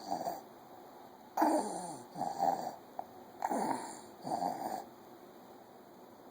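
Labored, wheezy breathing in a steady rhythm, about one breath every two seconds. Each breath is a drawn-out wheeze falling in pitch, followed by a shorter one.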